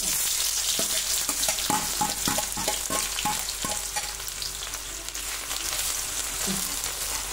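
Chopped onions dropped into hot mustard oil with cumin seeds in a kadhai: a loud frying sizzle that starts suddenly and holds steady. A slotted metal spatula clinks and scrapes against the pan in a run of clicks over the first few seconds as the onions are stirred.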